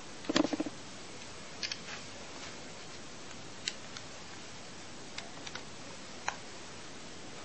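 Small plastic clicks and taps of a touchscreen handset and its hard black case being handled and fitted together: a quick run of clicks in the first second, then single clicks every second or two over a steady hiss.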